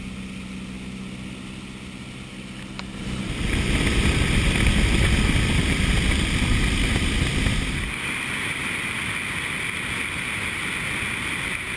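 De Havilland Tiger Moth's four-cylinder Gipsy Major engine running steadily in flight, with the rush of slipstream air. About three seconds in, a loud wind rush swamps the engine tone, easing a little about halfway through.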